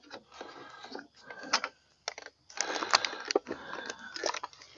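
Handling noise from a car's outside door mirror being worked loose from the door: irregular clicks and rattles of the plastic housing and parts, busier and louder in the second half.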